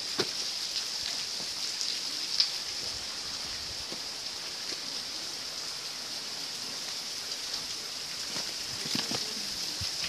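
Forest ambience: a steady, high-pitched insect drone that does not let up, with a couple of light clicks.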